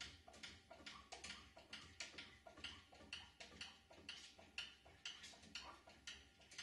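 Faint, steady ticking: short clicks repeating a little under three times a second.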